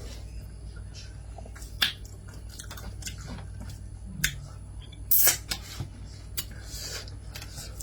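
Close-up eating sounds: a scatter of sharp clicks and taps with chewing between them, the loudest click about five seconds in, over a low steady hum.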